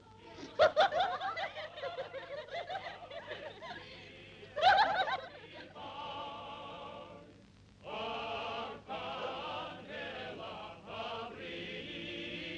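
A woman laughing in the first few seconds, with a loud outburst near the middle. Then, from about six seconds in, a choir sings a slow song in long held notes.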